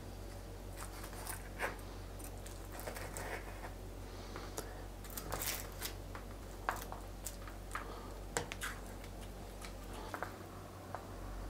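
Knife cutting through crisp, syrup-soaked baklava in a metal baking tray: scattered crackles of the flaky pastry and light scrapes and clicks of metal against the tray, over a faint steady low hum.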